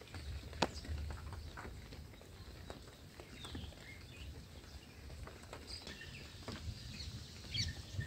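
Light, irregular pattering and ticking over a low steady rumble, with a few short high bird chirps, the last one near the end as a bulbul nestling begs with its beak open.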